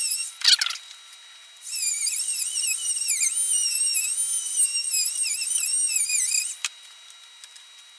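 Milwaukee cordless rotary tool with a small cutting wheel grinding clearance into the inside of an oil-pump windage tray. A couple of short high bursts come first, then about five seconds of steady high-pitched whine whose pitch wavers and dips as the wheel bites. It stops about two-thirds of the way through.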